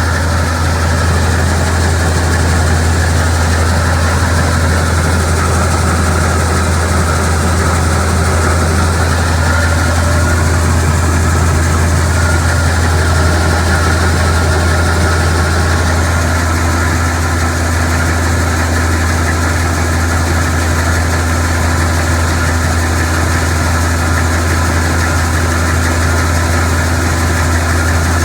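A heavy engine running steadily at an unchanging speed, with a loud low drone.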